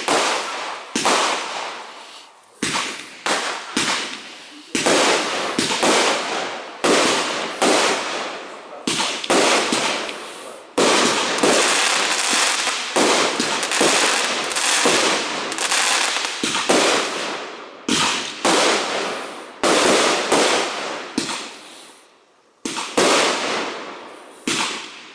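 Aerial fireworks display: shells bursting one after another, about one a second, each with a crackling tail that fades, with a brief lull about 22 seconds in.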